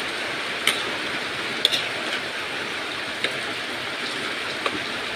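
Bamboo-shoot curry boiling in a large wok, a steady bubbling hiss with a few sharp clicks scattered through it.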